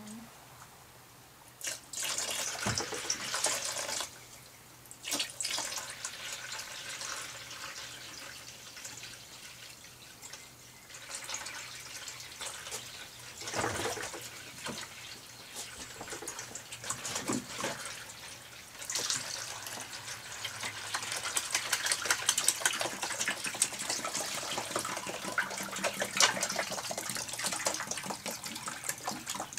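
Water poured from plastic gallon jugs into a plastic storage tub, splashing and glugging, in several pours: a short one about two seconds in, then a longer, nearly continuous pouring from about the middle, loudest near the end.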